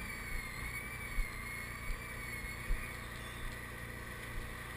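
Multi-axle heavy-haul trailer rolling slowly, heard from its rear steering end: a steady low rumble with a few soft knocks, and a faint wavering whine that fades out about three seconds in.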